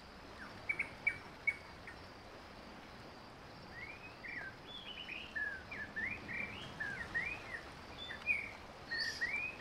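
Small birds chirping: a few short chirps about a second in, then a busy run of quick rising and falling chirps from about the middle on.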